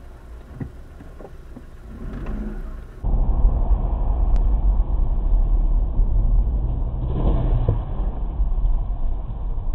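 Dashcam recording of road and engine rumble heard inside a moving car, stepping up sharply in loudness at a cut about three seconds in. A brief noisier stretch about seven seconds in comes as a collision ahead with a box truck throws debris across the road.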